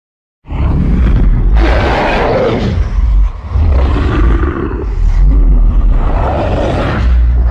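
Homemade recreation of a 1980s Godzilla roar: one long, loud roar over a deep rumble, starting about half a second in, wavering, with a short dip about three seconds in.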